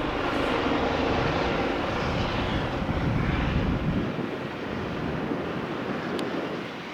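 Eurocopter EC135 helicopter running, its twin turbine engines and rotor making a steady noise; the deep rumble drops away about four seconds in and the sound eases slightly.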